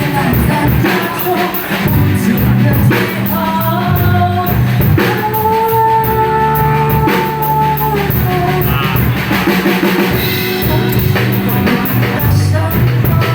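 A rock band playing live: drum kit, bass and electric guitars, with singing. A long high note is held for about three seconds in the middle.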